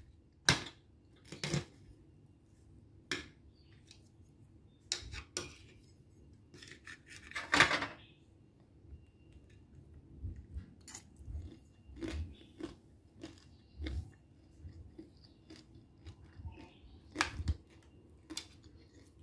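Metal spoon clinking and scraping against a ceramic plate while it breaks up a slab of fried taro cake: a dozen or so separate sharp clinks spread out, the loudest about halfway through, with a few soft low knocks in the second half.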